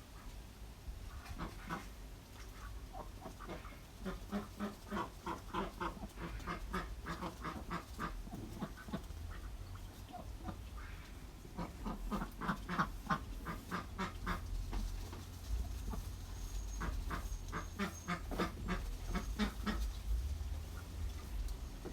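Ducks quacking in quick runs of calls, three bouts of rapid repeated quacks, over a steady low rumble.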